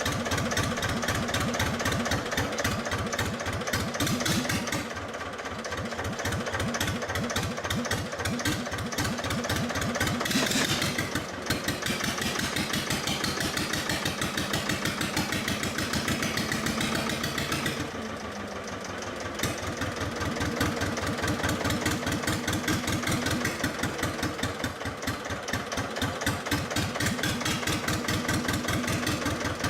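Armstrong Siddeley AS2 two-cylinder air-cooled diesel engine running steadily with a rapid, even diesel knock. The level dips briefly twice.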